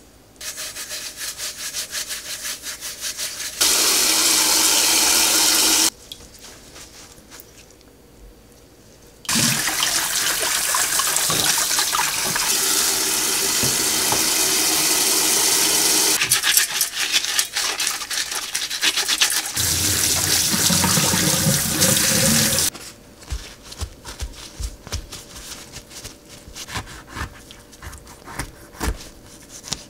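A lemon being scrubbed by gloved hand with baking soda and coarse salt over a stainless steel bowl, alternating with long stretches of a kitchen tap running and splashing into the bowl. In the last several seconds, light clicks and knocks of a knife cutting the lemon on a wooden cutting board.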